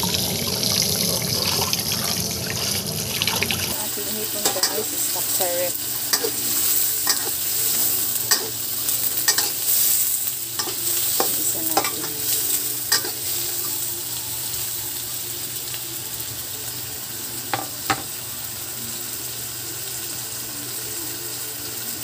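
Water running over shredded cabbage and carrots for the first few seconds. It cuts off abruptly to shrimp sautéing in oil with onion and garlic: steady sizzling, with sharp clicks and scrapes of a utensil stirring in the pan that come often until about halfway through, then only twice more.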